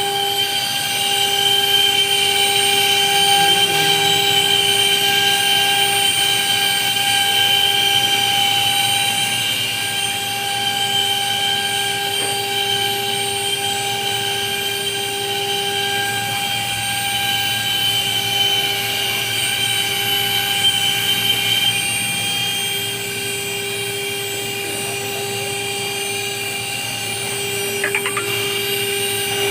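CNC machine's spindle running with a steady whine.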